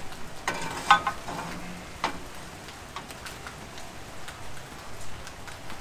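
Kitchen handling noises over a frying pan: a plastic butter tub handled, with a rustle and a few short squeaky tones about a second in and a sharp clack about two seconds in. After that comes a faint crackling sizzle as the pan heats on a portable gas burner.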